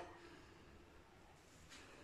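Near silence: faint background hiss.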